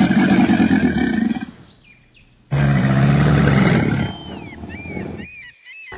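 Crocodile bellowing: two long, low, growling calls with a short pause between them. High bird chirps sound faintly in the background during the second call and after it.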